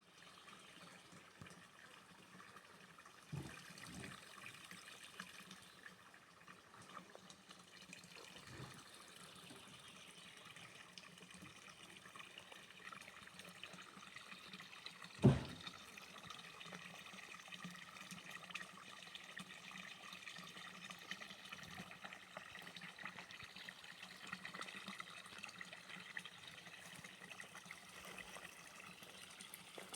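Water from a mountain stream running and trickling steadily. A few brief sharp knocks break in, the loudest about halfway through.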